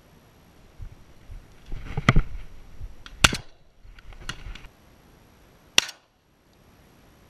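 Shotgun fired several times in quick succession at doves, with sharp reports roughly a second apart; the last one comes nearly six seconds in.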